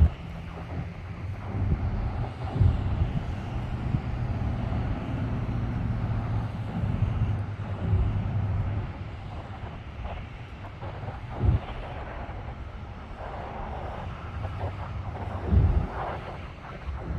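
Car running on the move: a steady low engine and road hum that shifts in pitch, with two short thumps in the second half.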